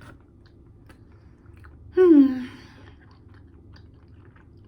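Close-up chewing of pizza, with small wet mouth clicks. About two seconds in there is one short vocal sound, falling in pitch.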